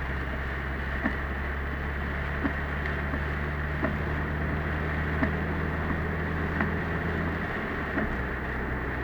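Car cabin sound while driving in typhoon rain: a steady engine and road hum under a constant hiss, with a short knock about every second and a half from the windshield wipers. The engine hum drops slightly near the end.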